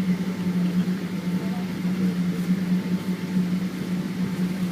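Steady cabin drone of a Boeing 777-200ER airliner: an even low hum from the engines and air systems, with a faint thin whine above it.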